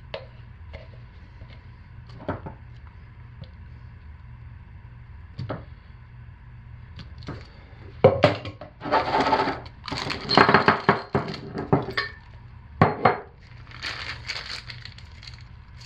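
A few light knocks and scrapes as thick soap is scooped out of a plastic pitcher, then, from about halfway, a run of loud crinkling and rustling as the plastic piping bag full of hot-process soap is lifted and handled.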